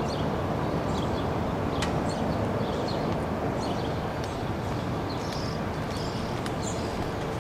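Outdoor ambience: a steady low rumble of background noise with faint, scattered high chirps and ticks.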